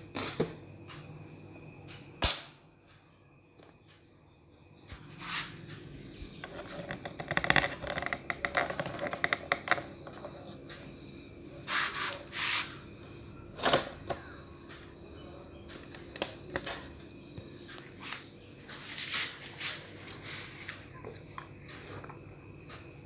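Handling noises from working on small parts: scattered clicks and knocks, with a stretch of rapid clicking and rattling about seven to ten seconds in.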